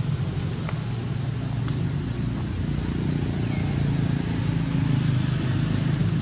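Steady low hum of a motor vehicle engine running.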